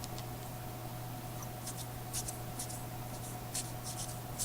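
Baseball trading cards being flicked and slid against one another by hand as a pack is sorted: a series of short, crisp rustles, over a steady low hum.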